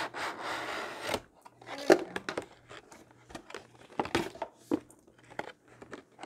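A plastic packaging tray sliding out of a cardboard box sleeve, a rustling scrape that stops about a second in, followed by scattered light clicks and knocks as the tray is handled.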